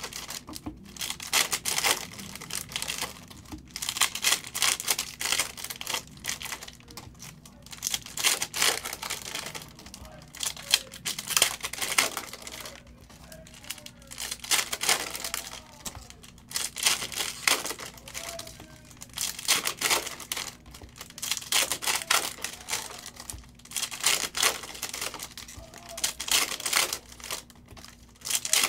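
Shiny plastic wrappers of 2022 Optic football hobby card packs being torn open and crinkled by hand, in repeated irregular bursts of crackling, over a faint steady hum.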